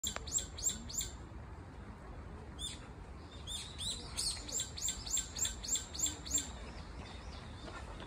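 Brown-eared bulbul calling: a string of short, sharp, high-pitched notes, each falling in pitch, repeated about three times a second. A quick burst of four opens, then a single note, then a longer run of about ten from about three and a half seconds in.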